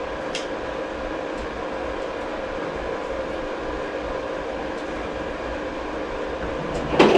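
Steady mechanical hum with a constant tone running without change, with a faint click about half a second in and a brief louder noise near the end.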